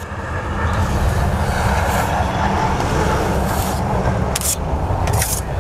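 A motor vehicle's engine running steadily: a low rumble with a broad hiss over it. A few brief, sharp hisses come near the end.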